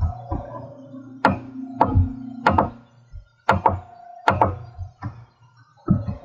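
Computer mouse clicking, about eight sharp clicks, some in quick pairs, over a steady low hum.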